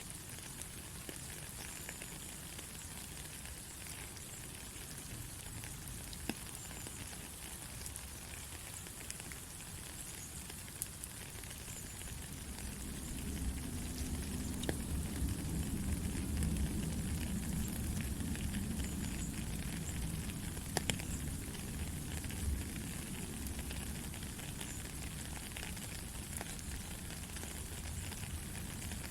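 Steady rain: an even hiss with scattered drops ticking. About halfway a low rumble swells in and the rain gets somewhat louder.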